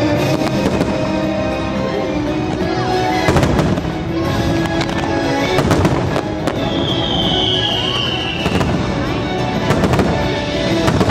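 Fireworks bursting in a run of sharp bangs and crackles over the show's musical soundtrack. A long high whistle, falling slightly in pitch, sounds through the middle.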